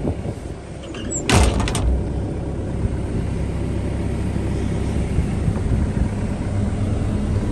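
An excavator cab door clunks shut about a second and a half in, then the John Deere 85G's diesel engine runs steadily with the cab air conditioning blowing.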